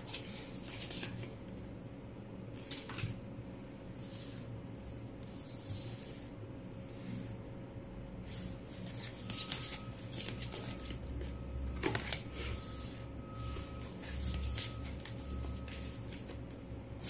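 Tarot cards being shuffled and handled, a series of short rustles every second or two.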